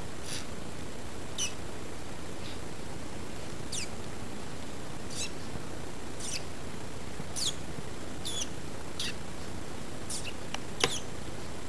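Guinea pigs giving short, high squeaks that fall in pitch, about one a second, over a steady hiss. The loudest squeak comes near the end with a sharp click.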